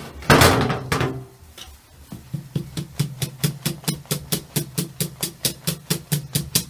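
Wire whisk beating thick honey-cake batter in a stainless steel bowl, the whisk knocking against the bowl in a steady rhythm of about five strokes a second. A loud clatter comes in the first second.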